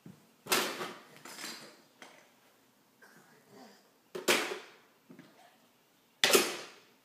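Plastic Lego Duplo bricks clattering in and around a plastic Duplo bucket: three loud rattling clatters, about half a second, four seconds and six seconds in, with smaller knocks between.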